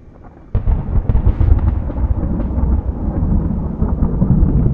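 Thunder sound effect: a sudden loud crack about half a second in, then a long rolling rumble.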